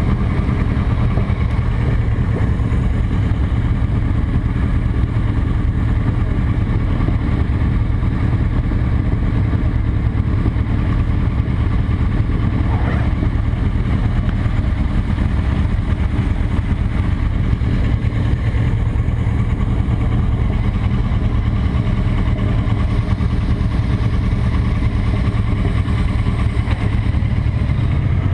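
Cruiser motorcycle engine idling steadily with an even low pulse, heard close up from the rider's seat; its note changes near the end as the bike moves off.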